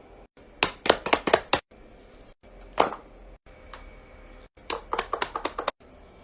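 Fidget toys being clicked and popped by hand: quick runs of sharp clicks about a second in and again near the end, with a single click in between.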